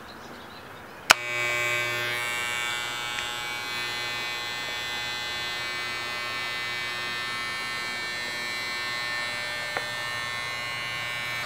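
Men's electric hair clipper switched on with a sharp click about a second in, then buzzing steadily as it is run through a Border Collie's coat.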